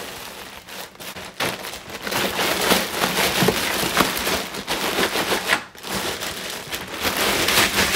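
Plastic bags crinkling and rustling: first a garbage bag pressed down to squeeze out air, then from about two seconds in a louder, dense crackling as a bag of ice cubes is handled and pressed flat, the ice shifting inside.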